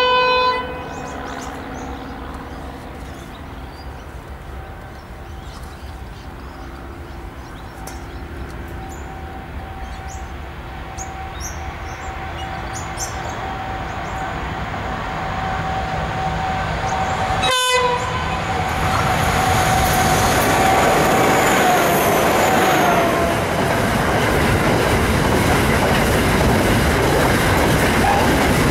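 A diesel-hauled iron ore train: a short blast of the locomotive horn at the start, then the engines' drone and whine growing louder as the two locomotives approach. The whine drops in pitch as they go by, and the ore wagons follow, rumbling and clattering past close by.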